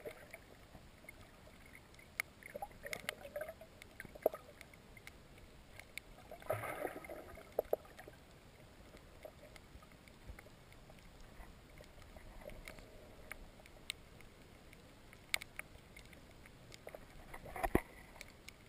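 Muffled underwater water noise picked up by a submerged camera, with scattered sharp clicks and a few short louder bursts of water sound, the biggest about six to seven seconds in and again just before the end.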